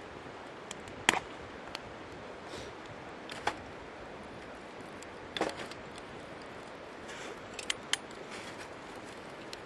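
A handful of sharp, irregular wood snaps and cracks, the loudest about a second in, over the steady rush of a flowing stream.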